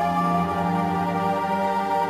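Ambient new-age background music: sustained, overlapping synthesizer tones held steadily.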